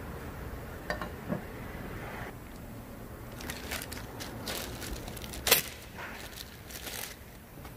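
Scattered light clicks and scrapes of small engine parts and hand tools being handled on a workbench, with one sharp click about five and a half seconds in.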